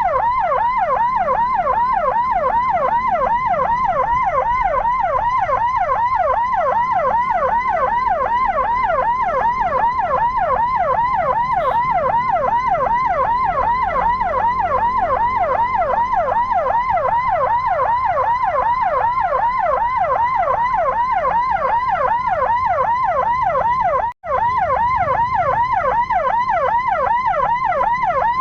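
Electronic siren on a fast yelp, its wail sweeping up and down about three times a second without pause. It cuts out for an instant about 24 seconds in.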